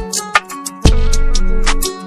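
Music without vocals: a beat with held melody notes, sharp percussive ticks, and a deep bass that comes in about a second in and cuts out near the end.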